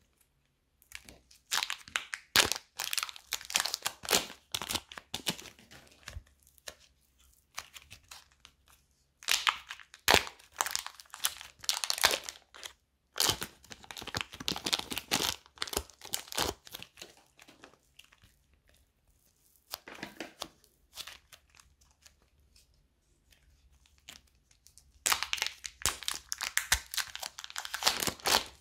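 Slime being squeezed, stretched and pulled apart by hand, giving dense bouts of fine crackling, with short quiet pauses between the bouts.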